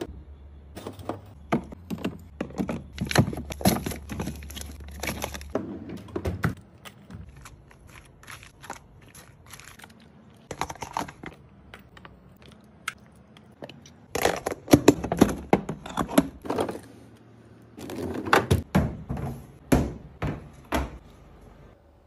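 Hard plastic food storage containers and lids being handled: a string of sharp clicks, knocks and snaps as containers are set down, lids pressed on and boxes slid into freezer drawers.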